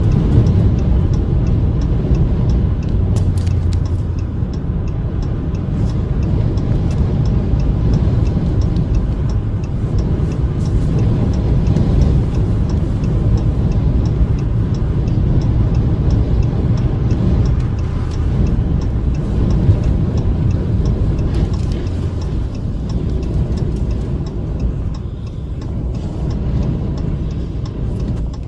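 Steady heavy rumble of strong wind and road noise heard from a vehicle driving on a highway, with a faint, fast, regular ticking running through it.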